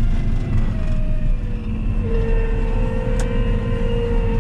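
Combine engine running with a steady low rumble as the machine turns. About two seconds in, a steady high tone joins it and holds, and a single click sounds just after three seconds.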